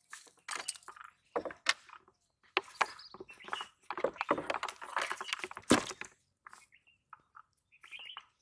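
Close handling noises as a small fish is worked off a hook by hand over a plastic tub of water: irregular clicks, rustles and wet slaps, the sharpest about six seconds in.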